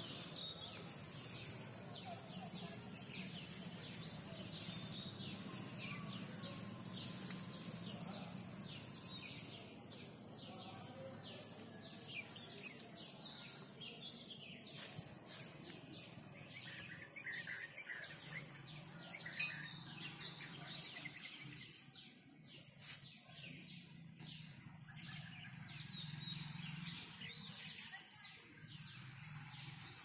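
Outdoor rural ambience: insects keep up a steady high-pitched drone while birds chirp in many short calls throughout.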